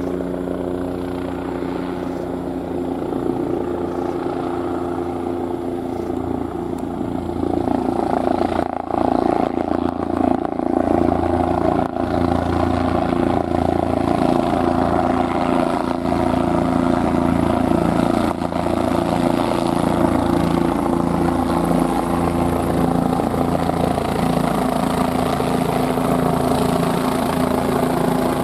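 Bell 407 helicopter in flight, its single turbine and four-bladed main rotor running steadily with a pulsing rotor beat and a set of steady engine tones. The sound grows louder about eight seconds in and stays loud.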